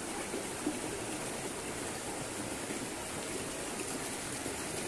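Steady rush and trickle of river water flowing past the rocks of the bank.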